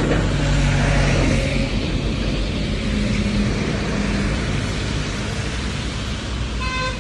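Road traffic passing close by: engine hum and tyre noise from heavy vehicles, including a bus going past. Near the end a brief horn toot sounds.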